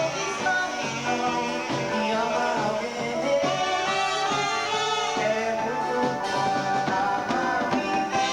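A dance band playing a song live, instruments with singing.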